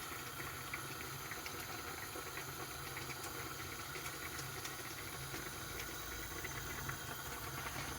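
A pan of food cooking in olive oil, giving a steady, faint sizzle with fine crackles. A low steady hum runs underneath.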